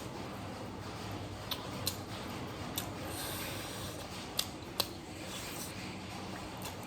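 Close-up eating sounds: a few short, sharp mouth clicks and smacks scattered over a steady low hum.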